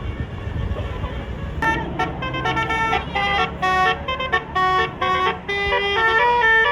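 Bus 'basuri' telolet horn playing a tune: a run of clear, stepped notes, each held briefly with short breaks between, starting about one and a half seconds in over a low engine rumble.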